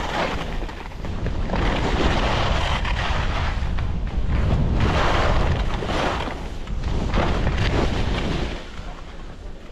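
Skis carving down a groomed slope of hard artificial snow, the edges scraping in swells with each turn, under heavy wind buffeting on the microphone. The scraping eases off near the end.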